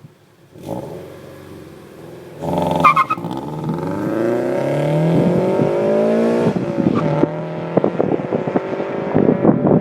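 Scion FR-S's flat-four boxer engine, breathing through unequal-length headers and an aftermarket exhaust, revs up under acceleration, its pitch rising steadily from a couple of seconds in. About two thirds of the way through the note drops off sharply to a lower, steadier tone, followed by a choppy, uneven burble near the end.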